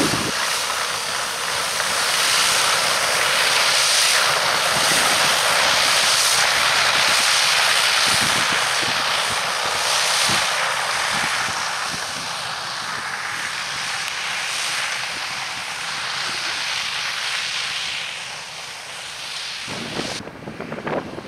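Shelbourne Reynolds PowerSpread Pro muck spreader discharging slurry behind a New Holland T7.245 tractor: a loud, steady rushing hiss as the spinning discharge throws the muck out sideways. It eases a little after about halfway.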